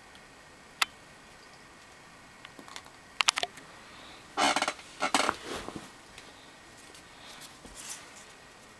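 Paper crackling and rustling as an origami paper crane is picked up and handled. It is preceded by a few sharp clicks, and the loudest crackle comes about four and a half seconds in.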